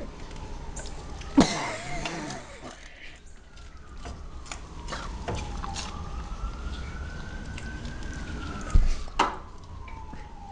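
A siren wailing, its pitch sliding slowly down and up again over several seconds. Two sharp knocks or crunches stand out, one about a second and a half in and one near the end.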